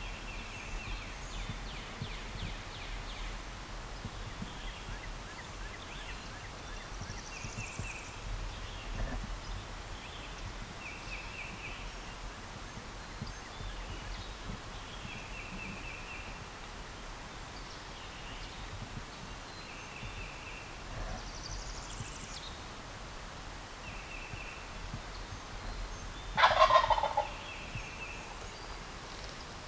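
A wild turkey gobbler gobbles once, loud, about 26 seconds in. Short, fast trilled bird calls repeat every few seconds in the background.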